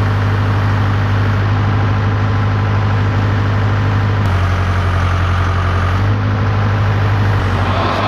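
Case 580K backhoe's diesel engine running steadily at idle. Around the middle its note drops for about two seconds while a hiss rises over it.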